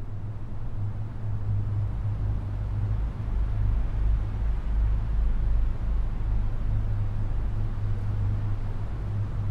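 Ambient drone music: a deep, steady bass drone under a soft hiss, swelling in level over the first few seconds.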